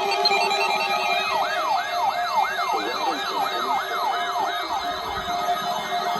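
Electronic siren in a fast yelp, its pitch rising and falling about three times a second, over steady tones.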